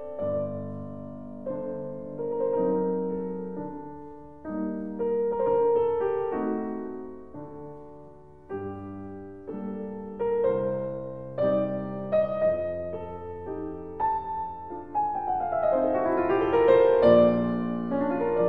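Slow background piano music: chords and single notes struck and left to fade, with a quick run of notes about three quarters of the way through.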